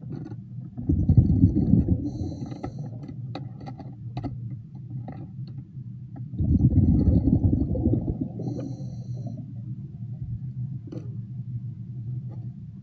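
A diver's breathing underwater: two loud bursts of exhaled bubbles about five seconds apart, each followed by a faint hiss, over a steady low hum with scattered clicks.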